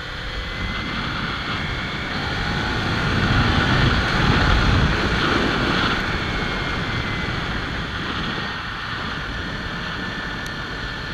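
Kawasaki Ninja 300's parallel-twin engine running while riding, under heavy wind and road noise. The noise swells louder for a couple of seconds about halfway, then settles back.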